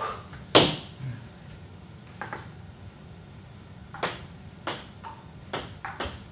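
Table tennis ball clicking off paddles and the table. There is one loud hit about half a second in and another near two seconds, then a quick rally from about four seconds in, with a hit or bounce roughly every half second.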